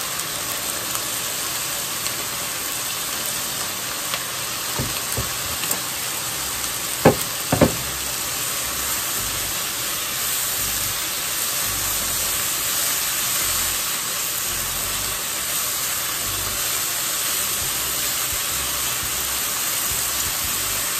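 Bite-size chicken thigh pieces sizzling steadily in a nonstick frying pan, frying in their own rendered fat while being stirred with chopsticks. A few light knocks about five seconds in and two sharper knocks around seven seconds in.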